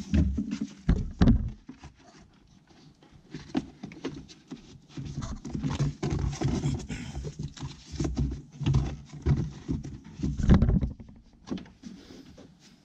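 Plastic knocking, thumping and rubbing as a new panel air filter is handled and seated in the plastic engine airbox of a BMW F30 328xi. The knocks come irregularly, loudest about a second in and again about ten seconds in.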